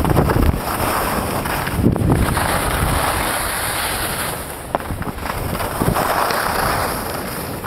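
Wind buffeting the microphone of a camera carried by a skier going downhill, mixed with the hiss of skis sliding over packed snow; the rushing swells and fades.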